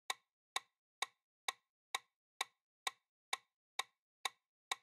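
Countdown timer sound effect ticking evenly, about two sharp clicks a second, with silence between the ticks.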